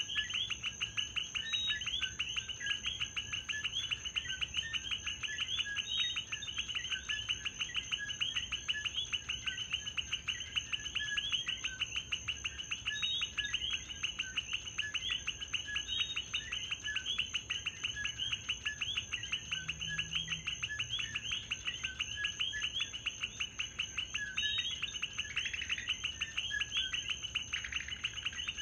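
Night chorus of common coquí frogs: many two-note "co-kee" calls repeating rapidly and overlapping, over a constant high-pitched whine.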